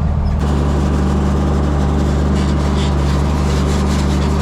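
John Deere 4430 tractor's six-cylinder diesel engine running steadily, pulling a seed drill: a constant low engine drone.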